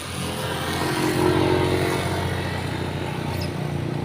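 A road vehicle's engine running close by, growing louder about a second in as it nears, with a steady low hum throughout.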